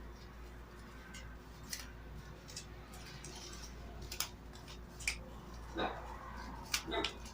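Paper strips being handled and pressed together by hand: scattered light rustles and taps, with two slightly louder short rustles near the end.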